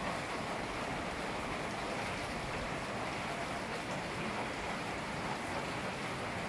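Steady rain falling, an even hiss that holds unchanged throughout.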